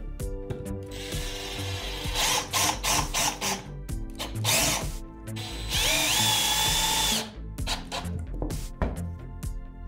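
Cordless drill driving a screw into a wooden block in two runs; in the second run the motor whine rises as it spins up and then holds steady. A backing track with a steady beat plays underneath.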